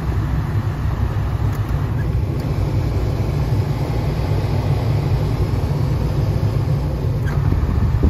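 Steady low rumble in the cabin of a 1981 Toyota Celica GT with the climate control running: the air-conditioning fan blowing over the engine at idle. A couple of faint clicks come as the slider levers are moved.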